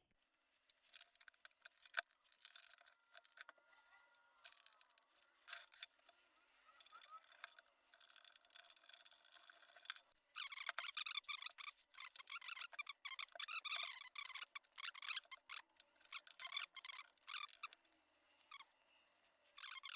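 Small clicks and rustles from hands working on wiring, with a denser stretch of rapid crackling and rustling in the second half.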